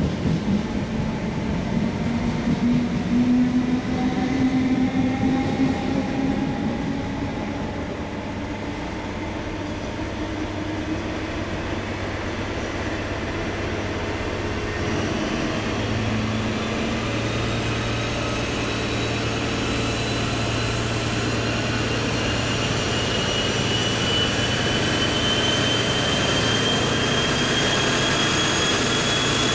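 An InterCity 125 (Class 43 HST) with Paxman Valenta engines pulling away from the platform. The engines and rolling coaches are loud at first and ease off a little about eight seconds in. Then the sound builds again, with a high turbocharger whine that keeps rising in pitch as the train gathers speed.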